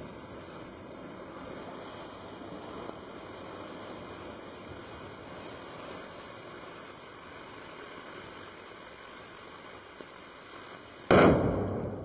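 Lumps of sodium metal fizzing steadily as they react with the water in a tub, then one sudden loud bang about eleven seconds in as the sodium explodes, dying away over about a second.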